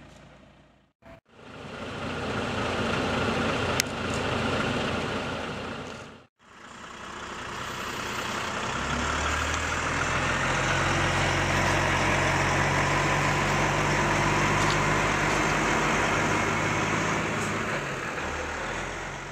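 Heavy diesel engine idling steadily, a low hum with a broad rumble over it. The sound drops out briefly twice at edit cuts, and there is a single sharp click a few seconds in.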